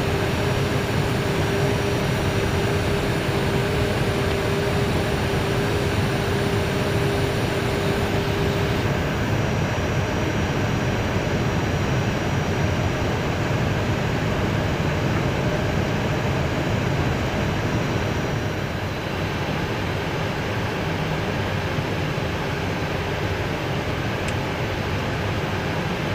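Airbus A320 flight-deck noise in flight: a steady rush of airflow and air conditioning. A steady hum stops about nine seconds in, and the rush eases slightly later on.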